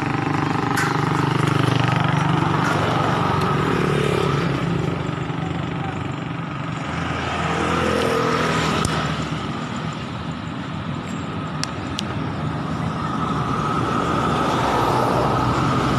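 Honda 125 Alpha motorcycle's single-cylinder four-stroke engine running steadily while riding along a highway, heard from the rider's seat along with road noise.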